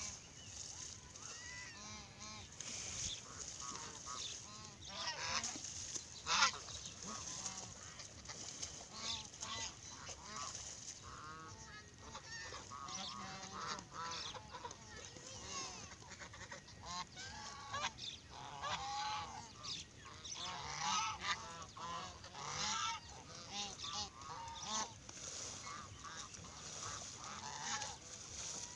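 A flock of white domestic ducks quacking, many short calls overlapping throughout, with one louder sharp sound about six seconds in.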